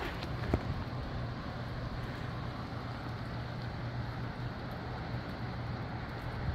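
Gusty wind with misty drizzle: a steady rushing and low rumble, with one sharp tick about half a second in.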